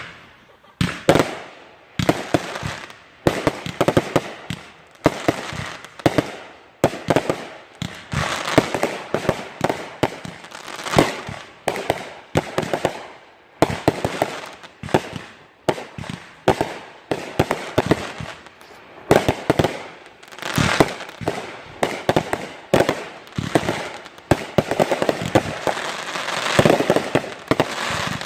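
Backyard consumer fireworks going off in a continuous barrage: many sharp bangs in quick succession with no real break.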